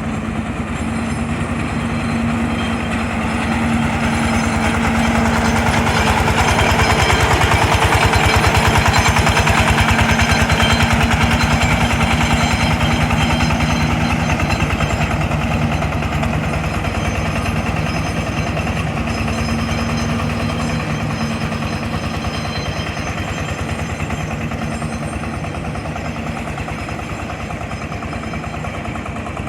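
Mini crawler combine harvester's engine running steadily, growing louder toward the middle and then easing off.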